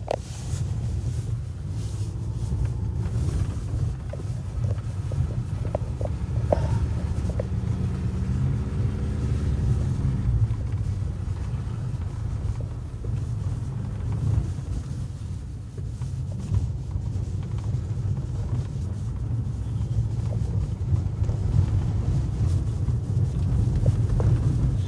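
Car cabin noise while driving slowly over a snow-covered dirt track: a steady low rumble of engine and tyres, with a few light clicks about five to seven seconds in.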